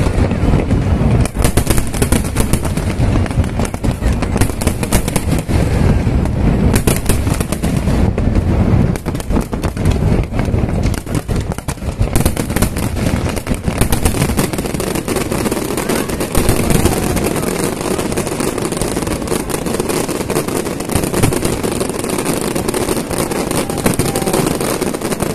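Aerial fireworks display: many shells bursting in rapid succession, a near-continuous barrage of overlapping bangs.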